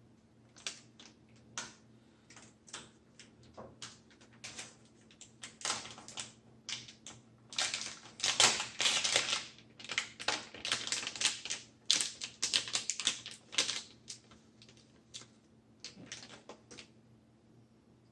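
Hands handling a replacement LCD screen and its crinkly anti-static bag: irregular small clicks and rustling, busiest in the middle stretch.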